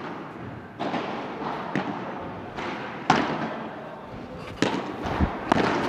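Padel rally: the ball being struck by rackets and bouncing off the court, a series of about seven sharp knocks at uneven intervals, the loudest about three seconds in.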